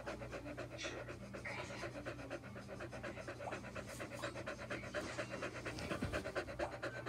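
A dog licking and panting right at the microphone: a quick, steady run of wet licks and short breaths.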